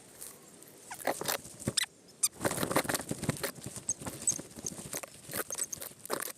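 Footsteps crunching and rustling through dry leaf litter and brush, in an uneven walking rhythm.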